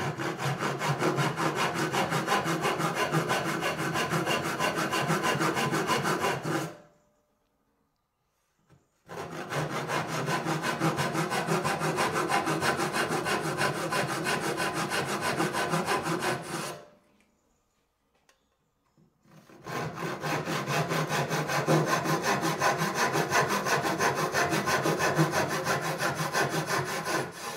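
Hand backsaw cutting into the end grain of a pine board held upright in a wooden vise, in steady back-and-forth strokes. The sawing comes in three runs, stopping twice for about two seconds.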